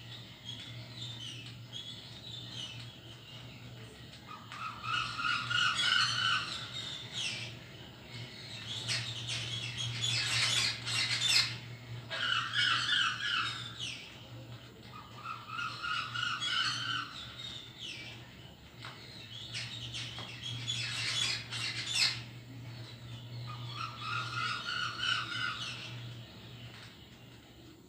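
Bird calls: short phrases of rapid repeated notes come again every few seconds, with harsher squawks in between, over a steady low hum.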